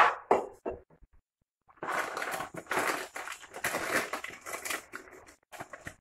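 Off-camera kitchen handling noise: a few short knocks in the first second, then about three and a half seconds of dense, crackling rustle.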